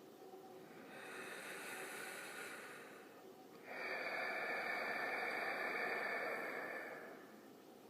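Creepy breathing sound effect: two long breaths, the first softer, the second louder, starting suddenly about halfway through and lasting about three seconds.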